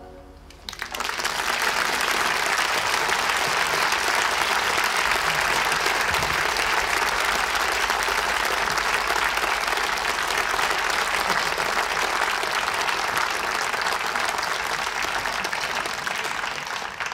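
Audience applause: many people clapping, starting about a second in as the band's final chord dies away and then holding steady.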